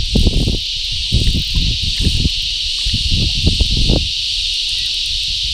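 Steady high-pitched buzzing of insects from the riverbank trees. In the first four seconds a run of irregular low thumps and rumbles sits underneath it, then stops.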